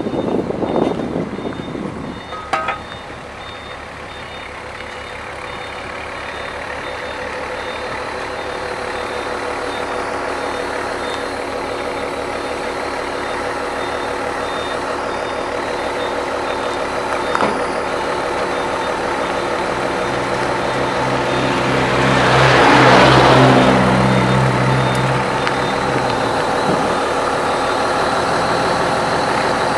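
Heavy diesel engine running and slowly growing louder, with a reversing beeper sounding over it as a steady, repeating high beep. About two-thirds through, a louder surge of engine noise lasts a few seconds.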